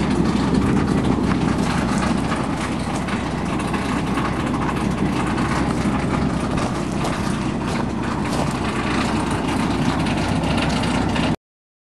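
Steady low rumble with a hiss over it from a producing gas well's wellhead equipment, unchanging until it cuts off abruptly near the end.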